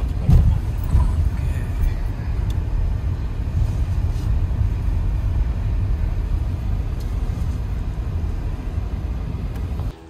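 A car rolling slowly, heard from inside the cabin: a steady low rumble of engine and tyres, with a couple of bumps in the first second.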